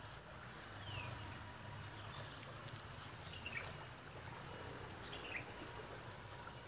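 Faint outdoor stream-side ambience: a bird gives about four short falling chirps, one every second or so, over a low steady background of flowing water.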